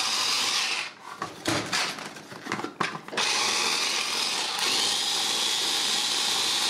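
Clatronic electric mini chopper whirring as it grinds pecans toward a fine powder. It stops about a second in, a few knocks follow as the chopper is handled, and it starts again about three seconds in; its whir shifts slightly about four and a half seconds in and then runs steadily.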